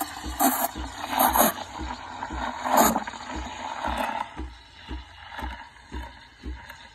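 Breville espresso machine's steam wand frothing milk in a stainless steel pitcher. For about four seconds there is a hiss with loud irregular bursts, then it settles to a quieter steady hiss. A low pulse about twice a second runs underneath.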